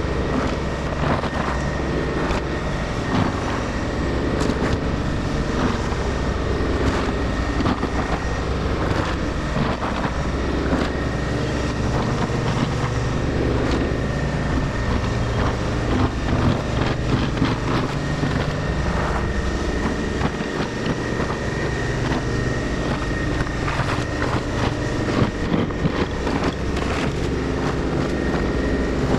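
Takeuchi compact excavator's diesel engine running under load, with a thin steady high whine, as it digs out and swings buckets of broken riprap rock and muddy sediment. Rocks knock and clatter against the steel bucket again and again.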